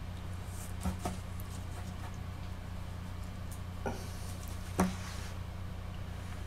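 A steady low hum, with a few light taps and clicks as a small clay-modelling tool is handled and set down on a desk; the loudest tap comes about five seconds in.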